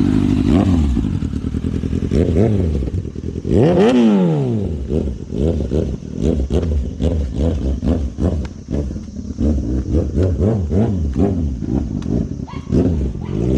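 Kawasaki Ninja ZX-6R's inline-four running with its catalytic converter deleted. It is revved once high, rising and falling about four seconds in, then blipped quickly again and again.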